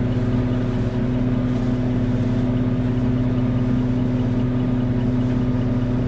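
Ready-mix concrete truck's diesel engine running steadily, turning the drum as it discharges concrete down the chute; a constant low hum with no change in speed.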